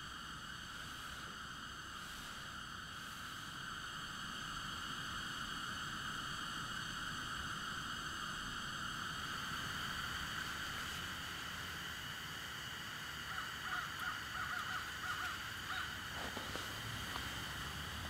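Small portable canister-gas radiant heater burning with a steady hiss and a faint whistle-like hum, with a few brief faint chirps near the end.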